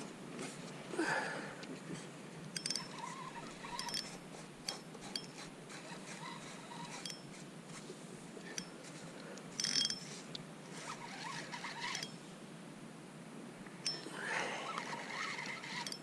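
A spinning reel is being cranked slowly against a heavy fish on the line, with scattered faint clicks and ticks.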